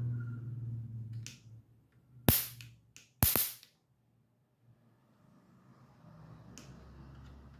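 Electric mosquito racket discharging: two sharp spark snaps about a second apart, a little over two and three seconds in, as metal is touched to the charged grid. The snaps show the racket's high-voltage circuit working again after the battery wire was resoldered.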